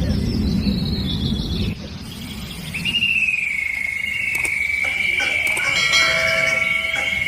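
A steady, high, finely pulsed insect trill, like a cricket's, starts about three seconds in and carries on unbroken, after a low rumbling noise in the first couple of seconds. Around six seconds in there are a few sharp clicks and a short chime.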